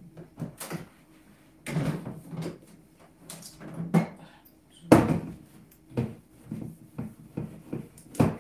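Irregular knocks and clunks of kitchen things being handled while a microwave is wiped down with a cloth, including an electric kettle being lifted and set down on the counter. The loudest is one sharp knock about five seconds in.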